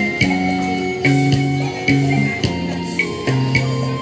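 Instrumental break of a karaoke backing track for a Japanese enka song: plucked guitar and held notes over a steady drum beat, with no singing.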